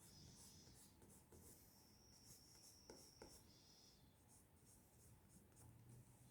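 Near silence, with faint scratching strokes and a faint steady high tone for about a second and a half midway.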